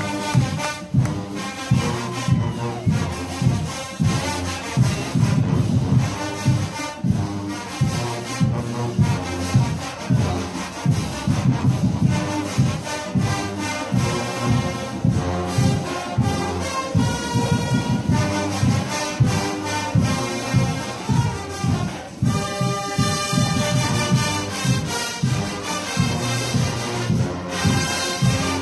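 University marching band playing, with sousaphones and other brass over a steady drum beat, heard from close beside a sousaphone bell.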